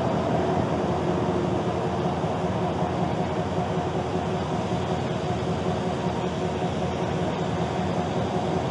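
Steady drone of vehicle engines and traffic, with a faint hum running through it and no breaks.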